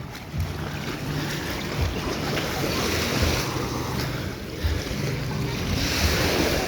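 Surf breaking and washing up the beach, swelling about three seconds in and again near the end, with wind buffeting the microphone.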